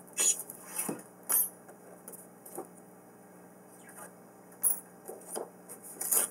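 Hands handling die-cutting plates, a metal die and paper on a wooden table: a scatter of short clicks, taps and light rustles with quiet between them.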